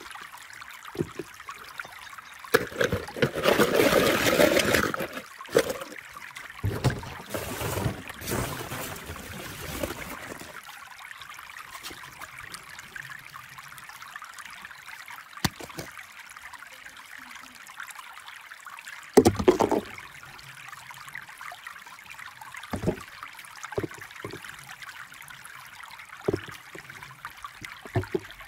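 Hard plastic balls in a ball pit clattering in bursts as a hand and a plastic tub rummage through them, with scattered sharp plastic clicks and handling noises over a steady light hiss. The densest clatter comes a few seconds in, with a second run shortly after and a sharp knock at about two-thirds of the way through.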